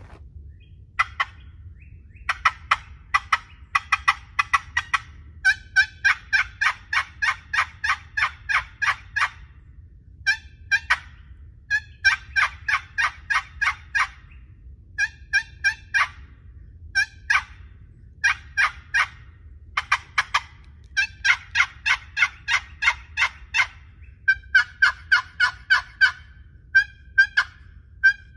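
Wooden turkey box call (Purpleheart lid over a Sycamore box, Purpleheart base) worked by hand, giving runs of quick yelping notes in imitation of a wild turkey. Each run lasts a few seconds, about four notes a second, with short pauses between runs.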